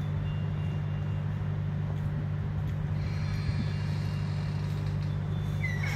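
A steady low mechanical hum that holds the same pitch throughout, with a faint high whine joining about halfway through.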